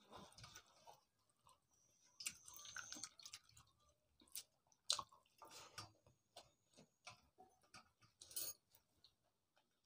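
Faint, scattered wet squelches, drips and small clicks as a hand squeezes and mixes pakhal, cooked rice soaked in water, in a stainless steel pot, with soft chewing between.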